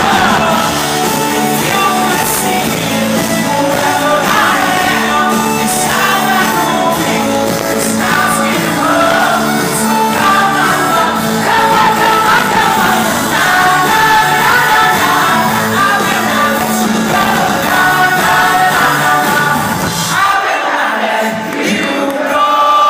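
Live pop-rock band playing with lead vocals, guitars and drums, heard from inside the crowd in a concert hall. About twenty seconds in, the bass and drums drop out and the crowd's noise and voices remain.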